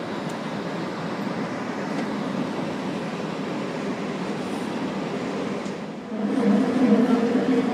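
Metre-gauge electric MOB Golden Pass Panoramic train running, heard from inside the passenger car as a steady noise of wheels and running gear. About six seconds in it grows louder and a low, wavering hum comes in.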